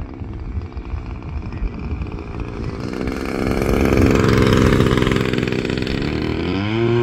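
DLE 20cc single-cylinder two-stroke gasoline engine of a 2 m RC model plane running at speed as the plane passes low and close, loudest about four seconds in, with wind buffeting the microphone before that. Near the end the engine note climbs sharply and then holds steady as it goes to full throttle.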